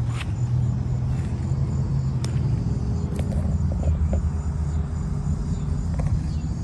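Outdoor air-conditioner condensing units running: a steady low hum of compressor and condenser fan, with a few faint clicks.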